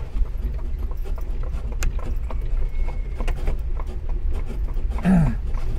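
Horse hooves clip-clopping as an Amish horse-drawn buggy rolls along, heard from inside the enclosed buggy, over a steady low rumble and scattered rattles and knocks of the carriage. A man's voice is heard briefly near the end.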